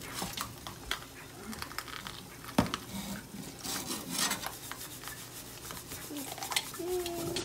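A sponge scrubbing a fire-blackened stainless steel pot with Bar Keepers Friend cleanser: repeated gritty rubbing strokes, with a sharp knock about two and a half seconds in.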